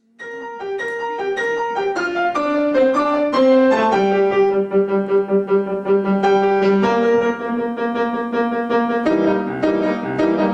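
Piano playing: a line of short single notes for the first few seconds, then held notes with a rapid pulsing figure, and a fuller chordal passage from about nine seconds in.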